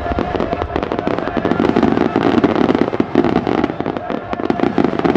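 A rapid-fire aerial fireworks barrage (starmine): bursts and crackles come so fast that they run together into a continuous rattle of bangs.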